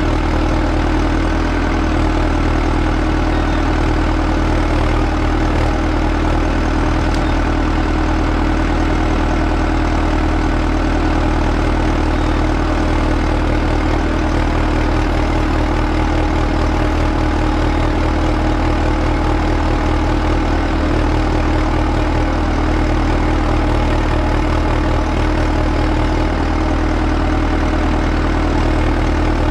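Volvo BM 6300's diesel engine running steadily at a constant speed.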